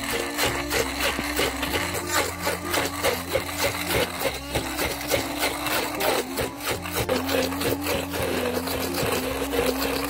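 Electric stick blender running in a cup, grinding chilies, shallots, garlic and candlenuts with a little oil into a smooth spice paste. Background music with a steady beat plays over it.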